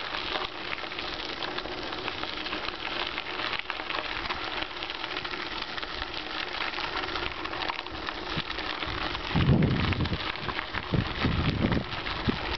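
Bicycle rolling along a rough road, its tyres and the bike giving a steady crackling hiss with small rattles. From about nine seconds in, gusts of wind buffet the microphone.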